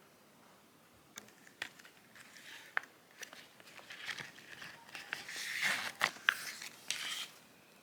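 Packaging being handled and opened by hand: crinkling and rustling with sharp clicks and taps, starting about a second in, busiest and loudest near the end, then stopping.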